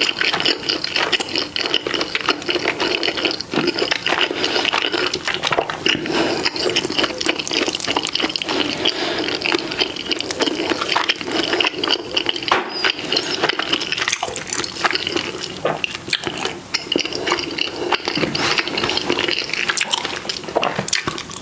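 Wet, close-up eating sounds: continuous chewing and slurping of saucy food, full of small crackles and clicks.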